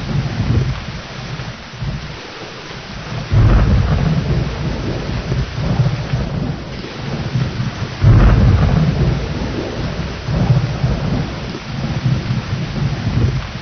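Steady heavy rain with rolling thunder; two thunderclaps break in suddenly, about three and a half and eight seconds in, each rumbling on for several seconds.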